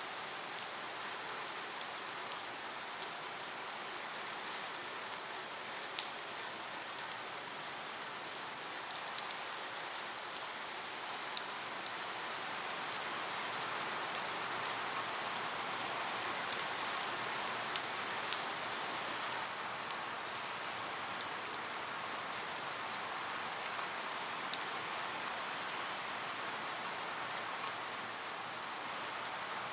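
Steady rain, an even hiss with many sharp drop ticks scattered through it.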